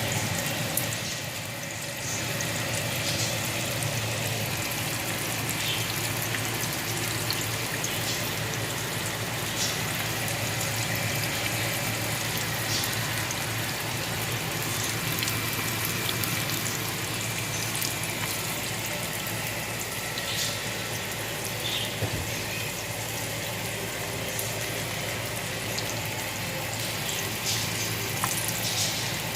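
Green tomato slices frying in hot oil: a steady sizzle with scattered small crackles, over a low steady hum.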